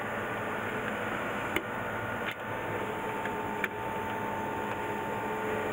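Three sharp plastic clicks over a couple of seconds as an I/O terminal module is pushed back into its slot on the rail of a control cabinet, over a steady background hum.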